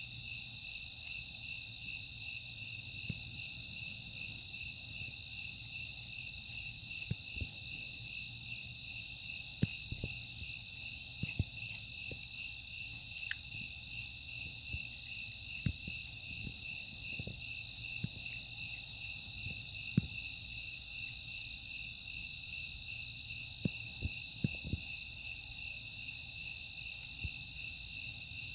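Steady chorus of night insects, several high-pitched trills, one of them finely pulsing, running on evenly. A dozen or so short soft knocks are scattered through it, the sharpest about two-thirds of the way in.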